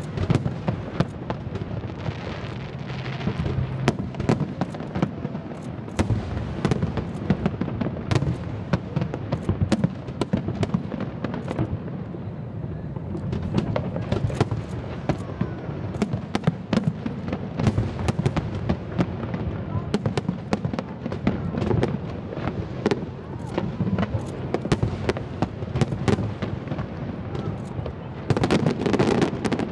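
Fireworks going off: a rapid, irregular string of bangs, with a louder flurry near the end.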